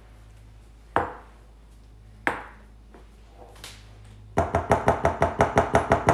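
Spatula knocked against the rim of a glass mixing bowl to shake off stiff beaten egg whites. Two single knocks come first, then a quick run of about a dozen taps, around seven a second, near the end.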